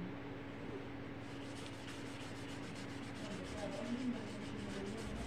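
Paintbrush loaded with poster paint scrubbing across paper in quick, repeated strokes, starting about a second in. A steady low hum runs underneath.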